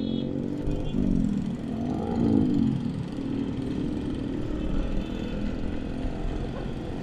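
Motorcycle engine accelerating from low speed in traffic: its pitch rises twice in the first three seconds as it revs up, then it runs steadily, over a low wind rumble on the microphone.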